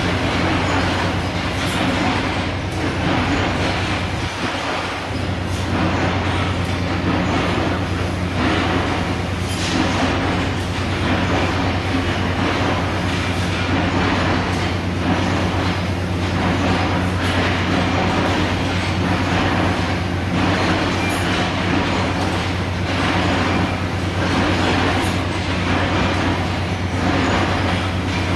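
CNC laser cutting machine running: a steady electrical hum under irregular rattling and hiss. The hum drops out briefly about four seconds in.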